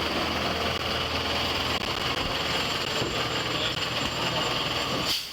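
Steady mechanical drone of an engine running, with no speech, dropping out briefly near the end.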